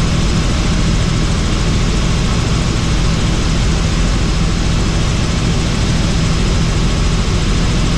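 Helicopter engine and rotor noise in flight: a loud, steady drone with an even low hum under a wide hiss, unchanging throughout.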